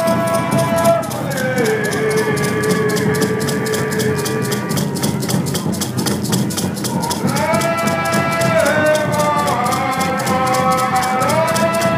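Several voices singing long held notes that slide from one pitch to the next, over a fast, steady percussion beat.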